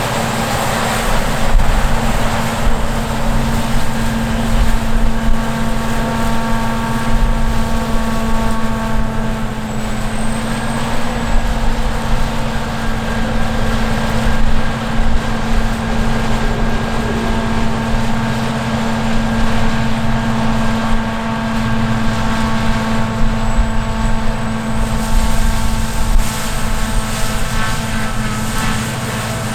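Heavy harvest machinery running steadily under load, with a strong low hum and several steady whining tones over it, and some wind on the microphone.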